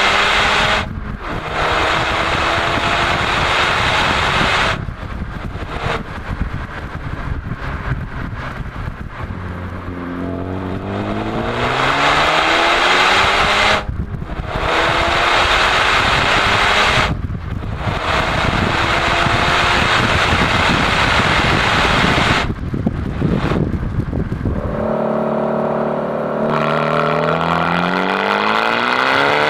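Honda Civic FK2 Type R's 2.0-litre turbocharged four-cylinder, through a Supersprint exhaust, accelerating hard with its pitch climbing. The rise is cut by several brief dips where the throttle is lifted for gear changes.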